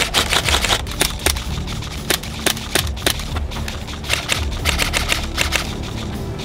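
Rifle gunfire in a firefight: rapid, irregular shots and short bursts over a steady low rumble, thinning out toward the end.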